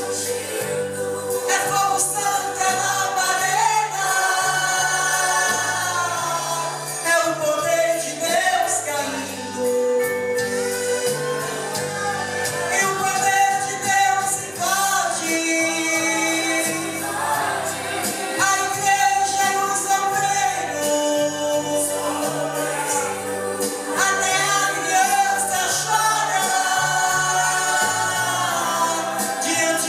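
A woman singing a Portuguese-language gospel hymn over instrumental accompaniment, with a bass line stepping from note to note beneath long, held sung notes.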